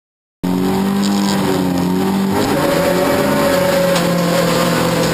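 Rallycross Toyota Corolla's engine running at high revs, heard from inside the cabin. It cuts in abruptly about half a second in, and its pitch shifts around two seconds in.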